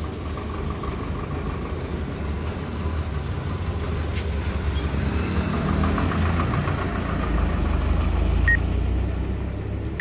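Motor vehicle engine running with road noise, growing gradually louder through the second half, with a brief high beep about eight and a half seconds in.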